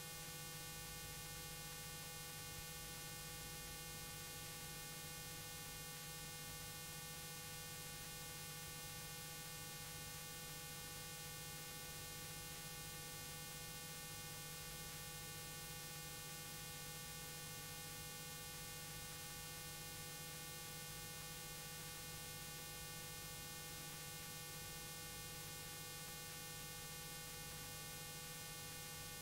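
Faint steady mains hum with hiss and a few thin, high, steady tones: the background noise of a VHS tape's playback over a stretch with no programme sound.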